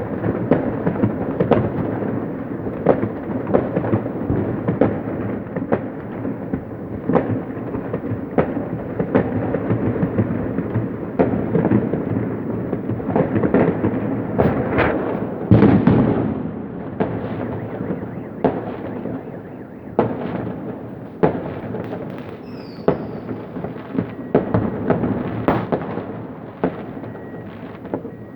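New Year fireworks going off all around: a continuous din of booming rumble and sharp bangs. The loudest burst comes about halfway, and the bangs grow sparser near the end.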